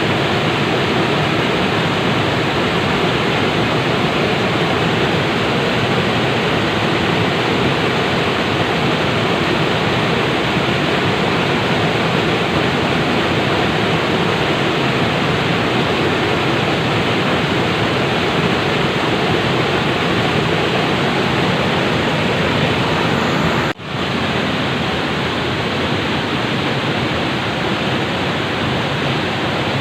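Flowing water rushing steadily with an even, unbroken hiss. It drops out for an instant about three-quarters of the way through.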